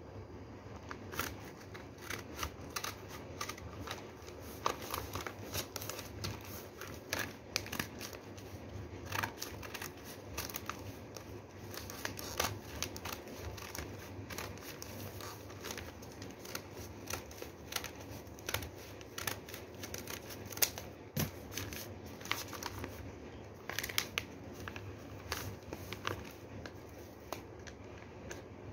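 Scissors snipping through a thick folded stack of newspaper in many short, irregular cuts, with the paper rustling and crinkling as it is turned and handled.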